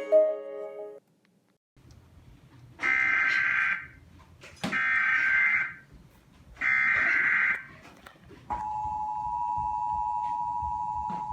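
Emergency Alert System header and attention signal: three separate bursts of about a second each of the SAME digital data header, then the steady EAS two-tone attention signal starting about eight seconds in. The tail of a music track stops about a second in.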